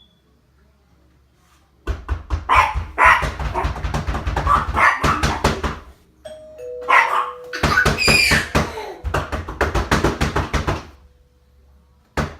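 A dog barks in rapid runs, starting about two seconds in. About six seconds in, a two-tone ding-dong doorbell chimes: a short high note, then a lower note that rings on under the renewed barking.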